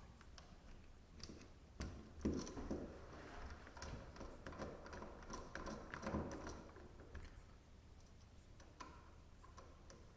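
Faint scattered clicks and rustling from a light switch and its wires being handled and pushed back into the wall box, busiest about two seconds in and again around six seconds.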